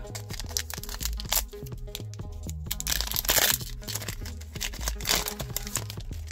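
A foil trading-card booster pack wrapper crinkling and tearing over background music, with the loudest rustle about three seconds in and another near the end.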